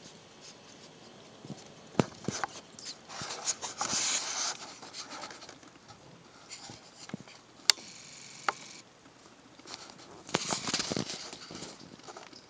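Cats and a live crab moving about on a tile floor: scattered light taps and scuffles of paws and crab legs, with a few sharp clicks, one about two seconds in and two near the middle.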